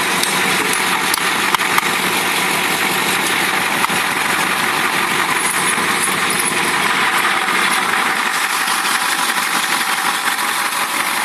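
Caterpillar 3208 V8 diesel engine of a 1988 Blue Bird All American rear-engine school bus idling steadily.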